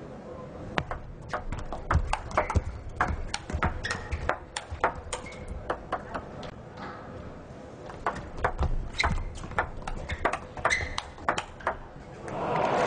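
Table tennis ball clicking sharply off the bats and the table in quick rallies, one knock after another at an uneven rally pace. Near the end there is a short burst of applause.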